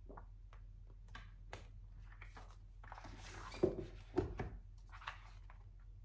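Paperback book pages flipped and handled, with light paper flicks and a rustling swish, then two soft thumps just past halfway as the volumes are moved. A steady low hum sits under it all.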